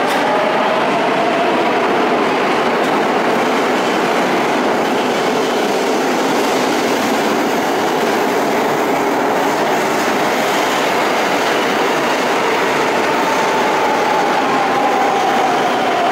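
Metro de Madrid Serie 9000 electric train running out of an underground station into the tunnel: a steady, loud rumble of wheels on rails, with a whining tone that glides up and down in pitch.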